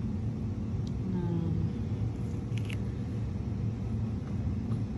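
Steady low background rumble, with a brief murmur of a woman's voice about a second in and a couple of faint clicks midway.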